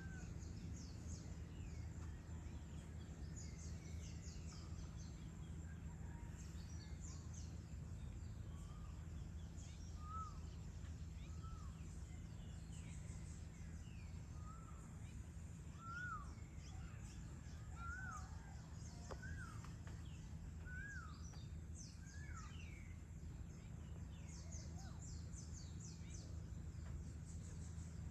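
Birds calling over a steady low background rumble: many short high chirps throughout, and in the middle a run of short rising-then-falling calls, about one a second.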